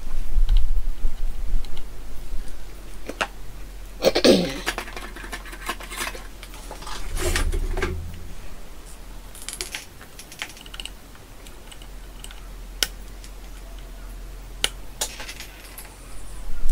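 Small tools and parts clicking and clinking on a workbench: a burst of clatter about four seconds in and again a few seconds later, then a few sharp single clicks near the end.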